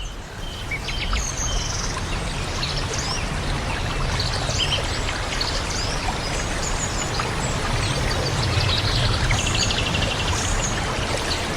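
Steady rain falling, with many short, high bird chirps and calls over it, including a quick rattling chatter about nine seconds in.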